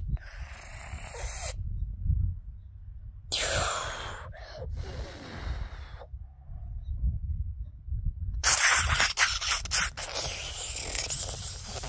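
Rubbing and rustling noise on a handheld phone's microphone, coming in three bursts (at the start, about three seconds in, and from about eight seconds on), over a steady low rumble.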